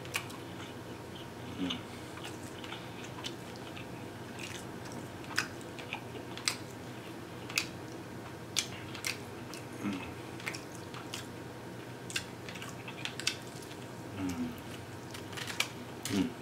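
Close-up chewing and biting of saucy barbecue pork ribs, with many sharp, irregular wet mouth clicks and smacks.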